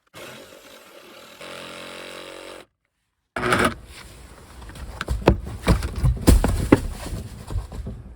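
A small engine running for a couple of seconds, then, after an abrupt cut, a rapid series of sharp knocks and clatter that grows louder toward the end, as from demolition work on a wooden deck.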